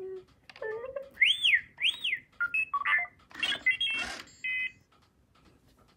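Droid Depot R2-D2 droid playing R2-D2 beeps and whistles from its speaker: a low warble, two arching whistles about a second in, then a quick run of bleeps and chirps that stops about four and a half seconds in.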